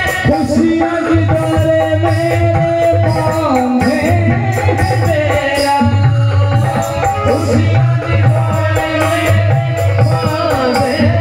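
Live Indian song accompaniment: a melody of held and gliding notes over a steady drum rhythm with a pulsing low beat.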